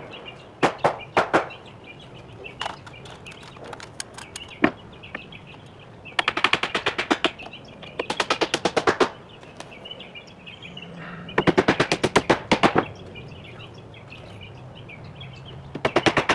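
Cordless impact driver hammering screws into lumber in four bursts of rapid clicking, each about a second long, with a few single wooden knocks in the first seconds. Birds chirp in the background.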